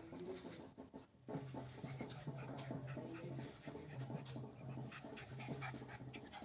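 A dog panting, faint, over a low steady hum that cuts out and comes back several times.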